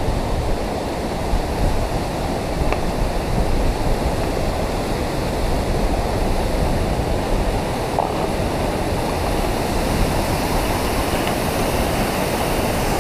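Fast, silty glacial river rushing over a boulder bed, a steady loud roar of water.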